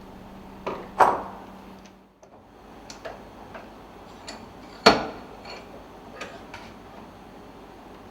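Clicks and knocks of metal parts being handled, as when fittings of a nitrogen pressure-setting tool are put together: a scattering of small clicks, with two louder knocks about a second in and about five seconds in.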